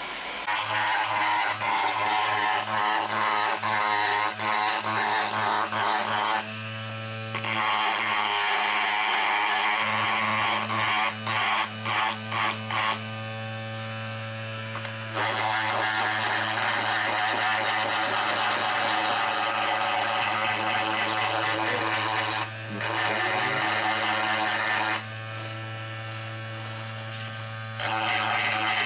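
A small handheld electric power tool buzzing in on-and-off stretches of several seconds, its grinding note shifting as it works on the fairing plastic.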